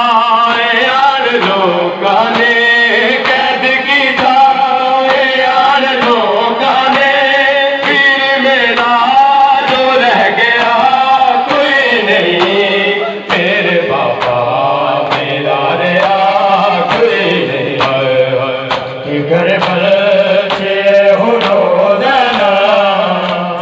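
Men's voices chanting a noha (Shia lament for Muharram), with the sharp slaps of chest-beating matam from the crowd cutting through the chant.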